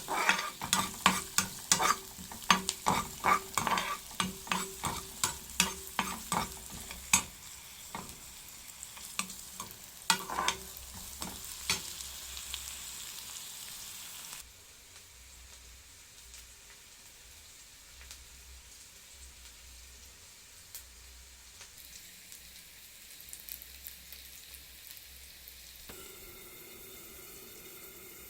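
A spoon stirring and knocking against a pan of frying tomato, onion, garlic and spices, about two strokes a second with the mixture sizzling. The strokes thin out and stop about halfway through, leaving a quieter steady sizzle.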